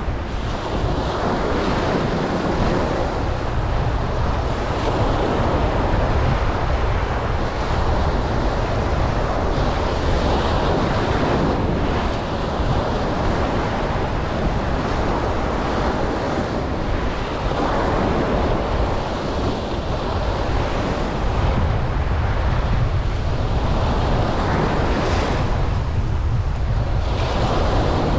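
Ocean waves breaking and washing up a beach, the surf swelling and easing every several seconds, with wind rumbling on the microphone.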